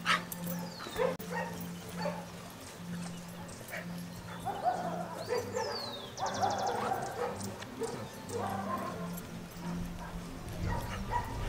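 Young German Shepherd puppy barking in short bursts during prey-drive training, most of the barks about halfway through, over a steady low hum.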